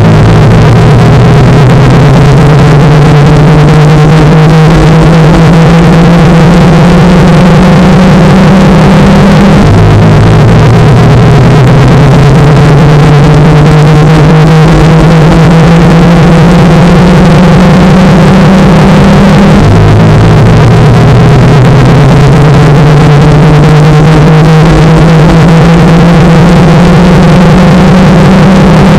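Washing machine spin-cycle noise, distorted and clipped to the maximum level: a low drone with a slowly rising whine above it. The pattern starts over about every ten seconds, as a repeating loop.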